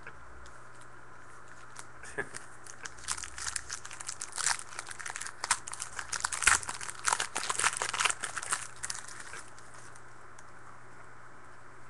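Wrapper of a 2013 Bowman football card pack being torn open and crinkled by hand: a run of sharp crackles that starts about two seconds in, is densest in the middle and stops a couple of seconds before the end.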